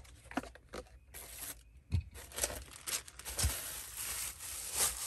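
Brown packing paper crinkling and rustling as a glass jar wrapped in it is lifted out and unwrapped, the crackle getting denser in the second half. A couple of light knocks come from things moving in a plastic storage box.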